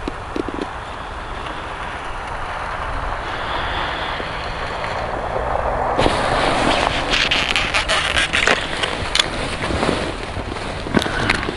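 Steady rushing background noise; from about halfway, a run of sharp crackles and knocks from handling on the ice: gloved hands, clothing and snow.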